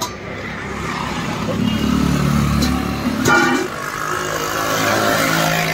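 Road traffic passing close by: a motor vehicle's engine running, with a short horn toot about three seconds in.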